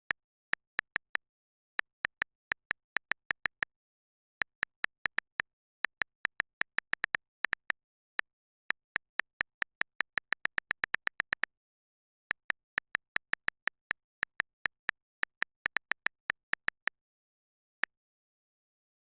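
Smartphone on-screen keyboard key-press clicks: short, high ticks in irregular runs, like someone typing, sometimes several a second, with dead silence between.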